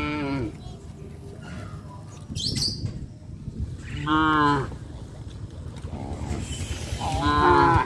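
Cattle mooing: three calls, a short falling one at the start, the loudest about four seconds in, and another near the end.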